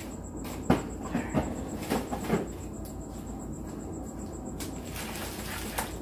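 Frozen food boxes knocked and shuffled into an open freezer's door shelves. There are several sharp knocks in the first couple of seconds, the loudest under a second in, then only a couple of faint clicks.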